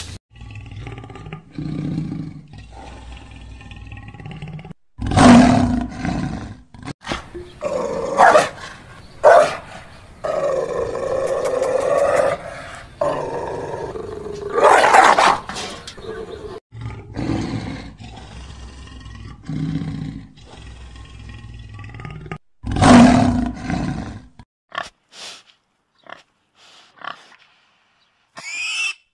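A series of recorded wild-animal calls, roars and growls, several loud ones a few seconds apart, with wolf calls around the middle. A run of short pig grunts and snorts follows in the last few seconds.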